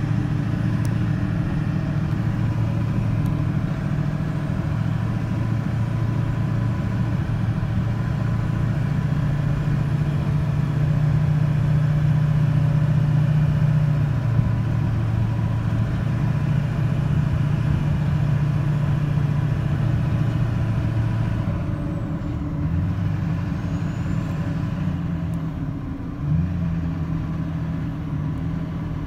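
Truck engine and road noise from inside the cab while driving on a paved road: a steady low engine hum that dips slightly and then steps up in pitch near the end.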